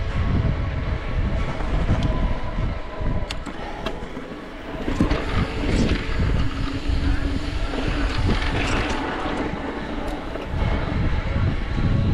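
Mountain bike ridden over a rocky trail: wind buffeting the microphone, tyres rolling over rock and the bike rattling, with several sharp knocks from hits on the terrain.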